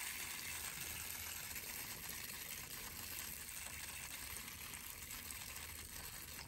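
Garden hose spray nozzle sending a fine spray of water onto freshly repotted bonsai soil, a steady hiss of spray and water landing on the gritty mix.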